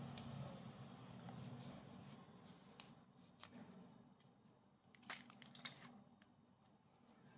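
Faint crinkling and tearing of a sausage's plastic casing as a knife cuts its end and fingers peel it back, with a few sharp clicks about five seconds in.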